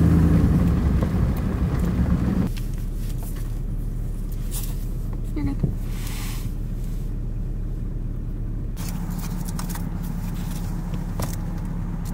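Vehicle engine running: a louder low rumble for the first couple of seconds, then a quieter steady low hum after about two and a half seconds, with a few faint clicks.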